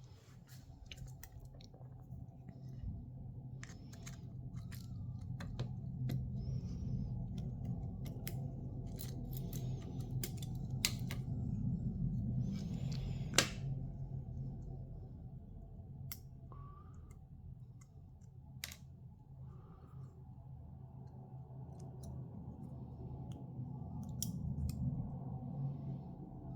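Scattered small clicks and light scraping of repair tools and parts being handled as a smartphone is taken apart, over a steady low hum. One sharper click stands out about thirteen seconds in.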